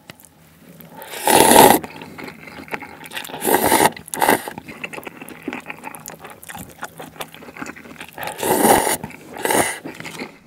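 Close-miked eating of black-bean-sauce cup noodles with chopsticks: about five loud slurps of noodles, the loudest about a second in, with small wet chewing clicks in between.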